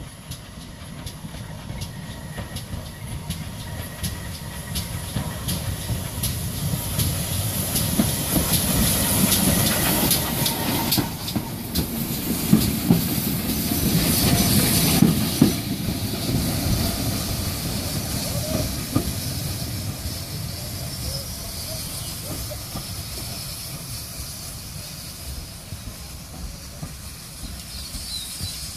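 GWR 14xx 0-4-2 tank engine No. 1450 and its autocoach coming in and passing close by: wheels clicking over the rail joints under a steady hiss of steam. The sound grows louder to a peak about halfway through, then fades as the train draws on along the platform.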